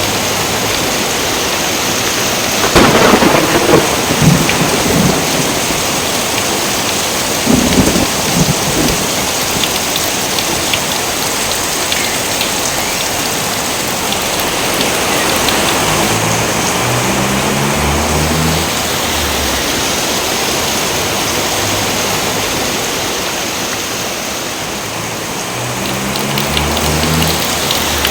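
Steady heavy rain, with two thunderclaps: the first about three seconds in, the second about seven and a half seconds in, each rumbling briefly before the rain carries on.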